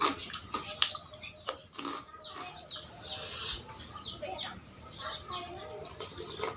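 Small birds chirping repeatedly, short rising and falling calls, with scattered sharp clicks and crunches of someone eating close to the microphone.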